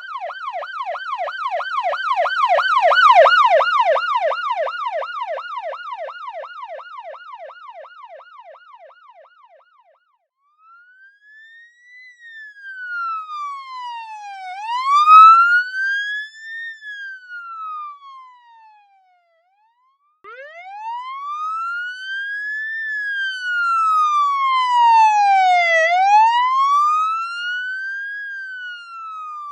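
Police siren sound effects. First a fast yelp, its pitch sweeping up and down about three times a second, swells and then fades away. After a short break comes a slow wail that rises and falls over a few seconds at a time; it drops out near 19 seconds in and starts again with the same slow rise and fall.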